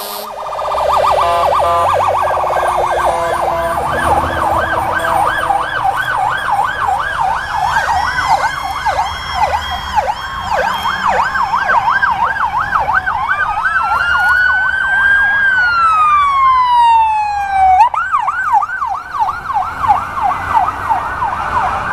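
Emergency vehicle sirens on passing fire engines and an ambulance. A rapid yelp warbles throughout. About two-thirds of the way in, a second siren's slow wail rises, falls away and then cuts off sharply, under a low engine rumble.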